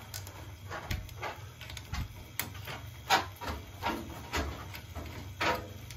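Braided stainless-steel purge hose and its brass fitting being handled against brass boiler valves: irregular clicks, knocks and short rubs, over a steady low hum.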